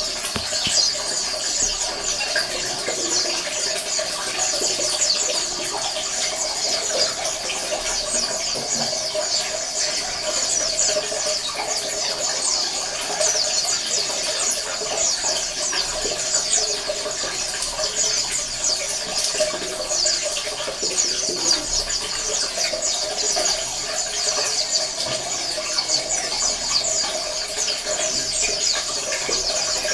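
A flock of white-eyes (pleci) chirping together: many high, quick chirps overlapping without a break.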